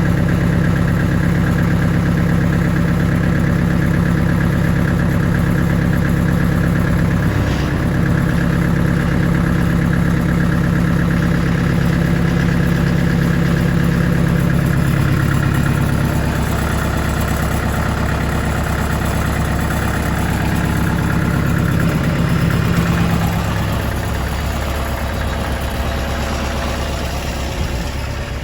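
An engine running steadily, its note shifting a little about halfway through and dropping in level near the end.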